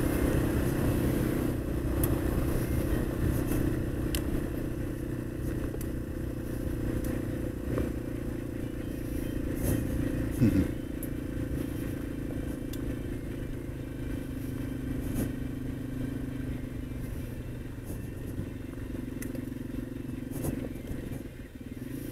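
Yamaha XT225's single-cylinder engine running at a steady cruise, with the tyres crunching over loose gravel and small stones ticking. One louder knock about halfway through, and a brief dip in the engine sound near the end.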